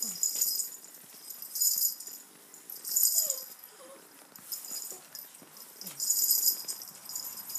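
A jingling rattle shaken in short bursts, about six times at an uneven pace of roughly one a second, the way a handler rattles something to lead puppies along.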